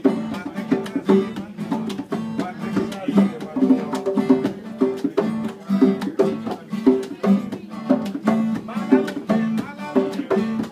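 Steel-string acoustic guitar strummed in a steady rhythm, played live.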